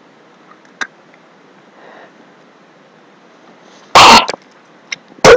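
A boy coughing hard after eating a foul-tasting Bean Boozled jelly bean. There is one loud cough about four seconds in and a shorter one near the end.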